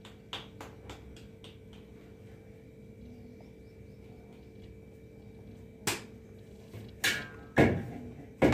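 Soft pats and light clicks of a ghee-greased semolina dough ball being pressed between the palms, then a few sharp knocks in the last few seconds, the loudest near the end. A faint steady hum underneath.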